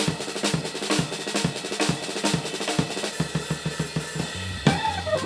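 Jazz drum solo on a drum kit: snare and bass-drum strokes under cymbal wash, quickening into a dense run of strokes about three seconds in. Near the end, the organ comes back in with low bass notes and a hard accent.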